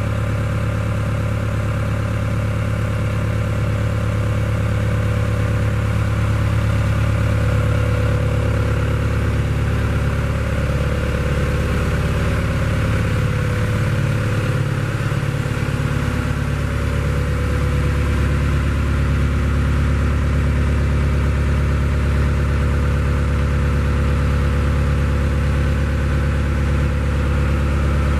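Hitachi FH130 tracked excavator's diesel engine idling steadily.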